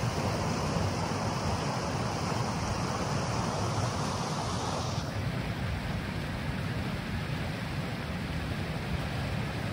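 Steady rushing of wind on the microphone and flowing water in concrete fish-hatchery raceways. The sound turns duller about halfway through, where the shot changes.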